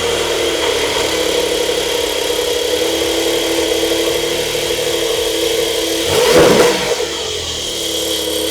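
Porsche 911 GTS twin-turbo six-cylinder engine running at a steady idle, blipped once in a short rev about six seconds in. The twin turbos muffle its sound.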